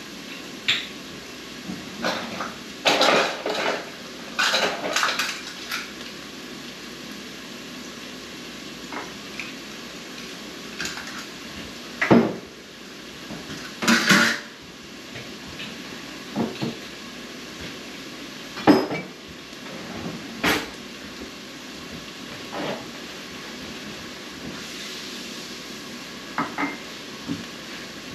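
Kitchenware being handled: irregular clinks and knocks of dishes, utensils and cupboard doors, a flurry a few seconds in, then single sharper knocks spread out, over a steady low hiss.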